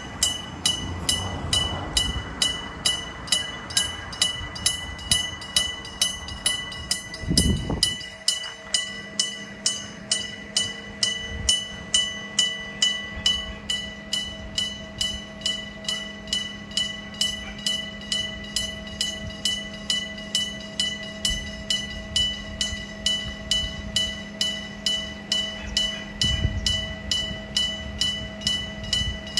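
Electric-bell level crossing signal ringing steadily, its bell struck about twice a second. Train noise rumbles under it in the first few seconds, a heavy low thump comes about seven seconds in and again near the end, and a steady low hum joins from about eight seconds on.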